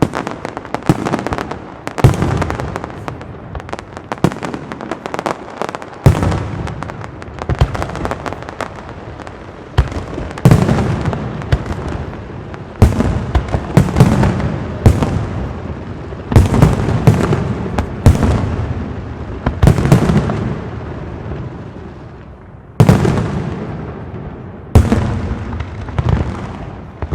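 Aerial fireworks display: shells bursting one after another, each sharp bang trailing off into crackle and echo. Lighter crackling bursts come first, then heavier, deeper bangs from about ten seconds in, with more big reports near the end.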